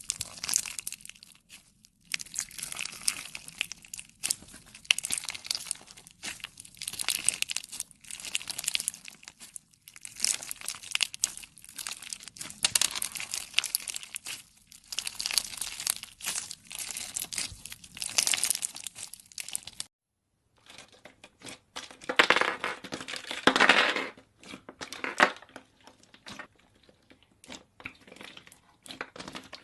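Slime being squeezed and stretched by hand, crackling and crinkling in repeated bursts. About twenty seconds in the sound cuts out at an edit, and more crackling slime follows, loudest a couple of seconds later.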